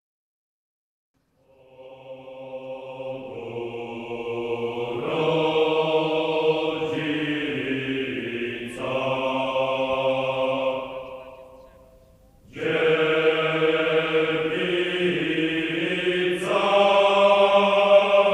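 Choral chant: a group of voices singing long held notes, starting after about a second and a half of silence, with a brief break about twelve seconds in before a second phrase.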